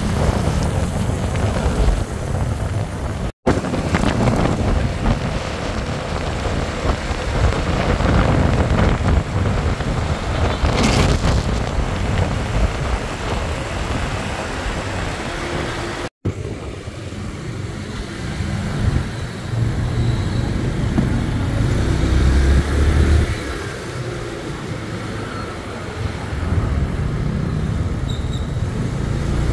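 Road and traffic noise heard from a moving motorcycle: a steady engine and road rumble with tyre hiss, with cars and scooters around it. The sound drops out for an instant twice.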